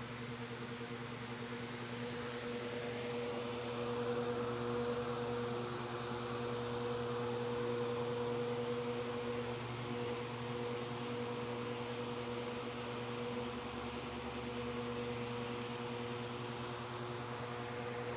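Steady mechanical hum: a low buzzing tone with an airy hiss over it, a little louder between about four and nine seconds in.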